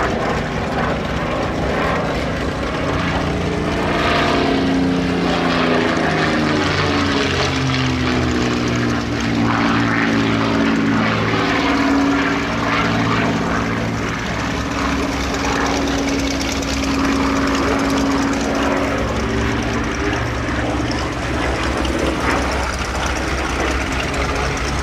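Supermarine Spitfire Mk XVI's Packard Merlin V12 engine running at display power in flight. Its note slides up and down in pitch over several seconds as the plane passes and turns.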